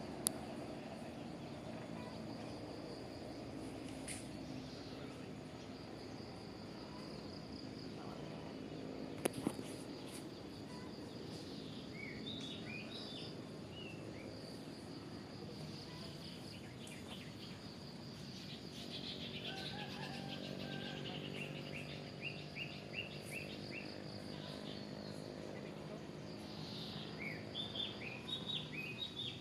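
Countryside ambience: a steady high insect buzz, with birds chirping in short bursts from about a third of the way in and again near the end, over a low steady hum. Two sharp clicks stand out, one right at the start and one about a third of the way in.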